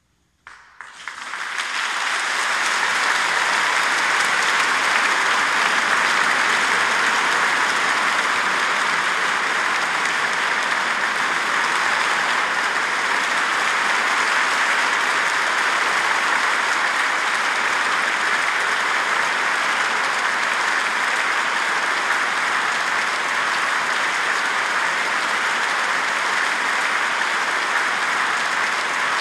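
A large audience in a concert hall breaks into applause about half a second in, after a moment of silence. Within a second or two it builds to steady, dense clapping that holds without a break.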